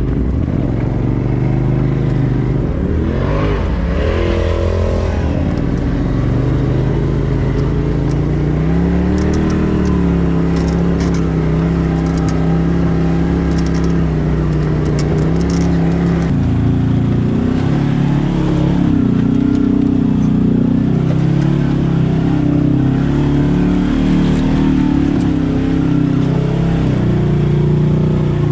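Side-by-side UTV engine heard from onboard while driving a dirt trail, its pitch rising and falling with the throttle. About halfway through, the sound changes abruptly to a second machine's onboard engine sound, running at a higher, steadier pitch.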